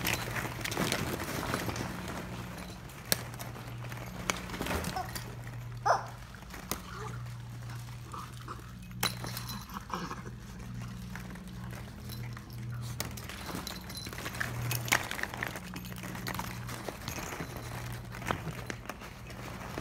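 Hollow plastic ball-pit balls clattering and knocking together as two Schnauzers nose and paw through them for treats, with scattered clicks and a few sharper knocks. A low hum comes and goes underneath.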